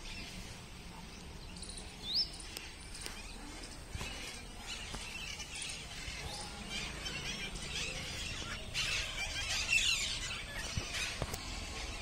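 A flock of parrots calling with shrill, high screeches: a single rising squeal about two seconds in, scattered calls after it, and a dense burst of overlapping calls about nine to ten seconds in.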